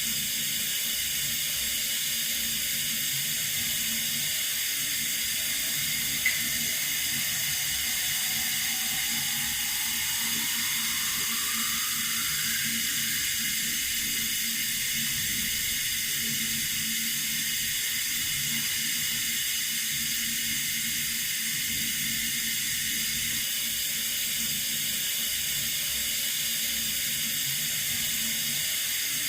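Water running steadily from a tap: an even, high hiss that does not change. A single brief click comes about six seconds in.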